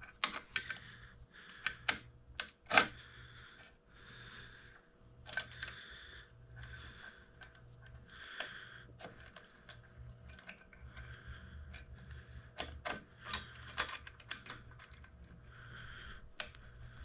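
Irregular light metal clicks and clinks of small parts being handled as a brake arm and its spring are fitted back onto a Stella scooter engine case, with faint rustling between the clicks; one sharper click about three seconds in.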